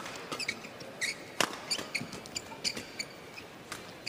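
Badminton rally: three sharp racket hits on the shuttlecock, about a second and a half to two seconds apart. Short high squeaks of players' shoes on the court come between the hits.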